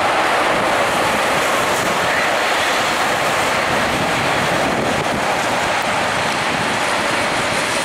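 Steady jet engine roar from a Boeing 737-800's CFM56-7B turbofans as the airliner rolls out along the runway after landing, slowly fading.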